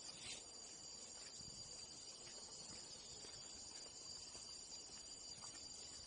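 Steady, high-pitched chorus of forest insects, several tones held without a break, with a few faint footstep-like ticks beneath it.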